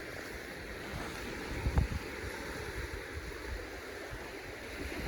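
Waves washing on a beach with wind buffeting the microphone in low rumbling gusts, one stronger gust about two seconds in.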